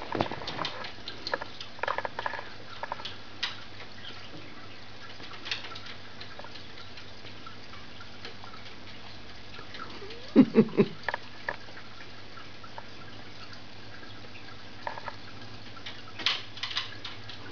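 A kitten's paws tapping and scrabbling against aquarium glass and a chair: scattered light taps and clicks. A short run of louder thumps comes about ten seconds in, and another cluster of taps near the end.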